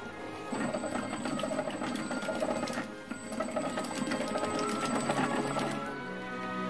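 Small electric motors of a radio-controlled wooden paddle boat running, with a rapid mechanical chatter from the gearing driving the paddle wheels. It starts about half a second in and stops near the end, over background music.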